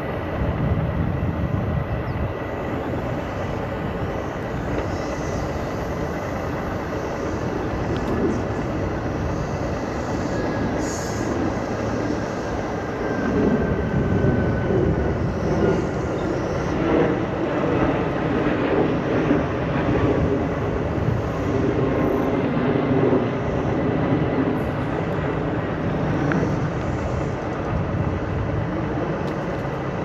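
Steady rolling rumble of a Segway Ninebot Max G2 electric scooter's tyres on the trail, with wind on the microphone. A deeper drone builds about halfway through and eases off again near the end.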